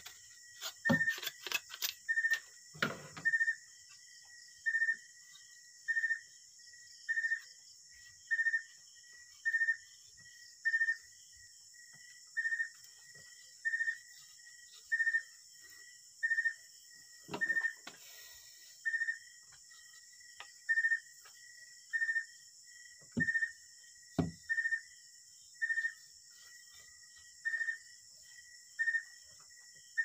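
A high chirp on one steady pitch repeats a little less than once a second over a constant high hiss. A knife cuts and scrapes at bamboo in the first few seconds, and a few sharp knocks come later.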